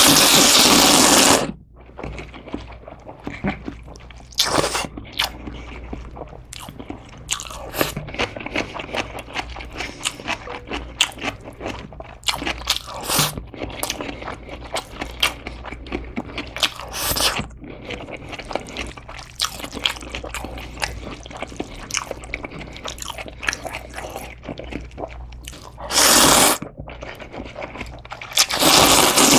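Close-miked noodle slurping: thin wheat noodles drawn into the mouth in a long, loud slurp at the start and two more near the end, with wet chewing and small mouth clicks in between.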